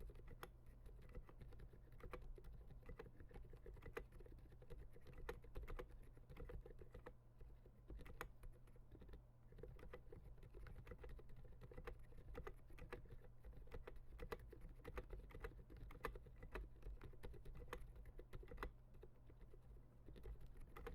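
Continuous, irregular typing on a MechMini2 mechanical keyboard with lubed 67g Zilent silent tactile switches and SA-profile keycaps. The keystrokes are quiet and damped, a soft patter of clicks with no sharp clack.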